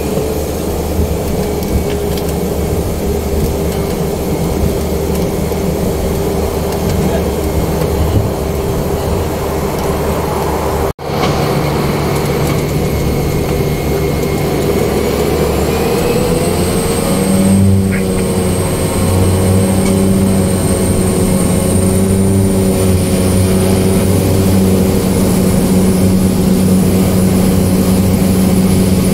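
Single-engine turboprop aircraft's engine and propeller running, heard inside the cockpit. About two thirds of the way through the pitch rises and the sound grows louder as power comes up for the take-off run; a brief gap near the middle cuts the sound off for an instant.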